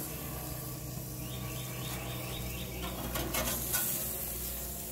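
Angus beef fillets sizzling on a hot grill, a steady crackle over a low hum, with a few short clatters about three seconds in.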